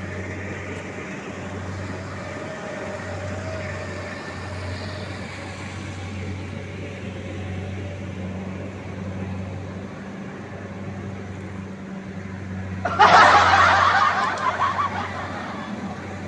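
Rice combine harvester's engine running with a steady low hum. About thirteen seconds in, a sudden loud rushing burst rises over it and fades within a couple of seconds.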